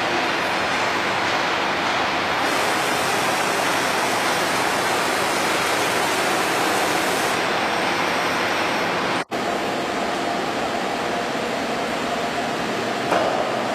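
Steady, loud hiss-like machinery noise in a workshop. It cuts out for an instant about nine seconds in, and there is a short click near the end.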